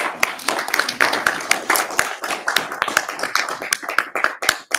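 A few people clapping their hands, the claps thinning out near the end.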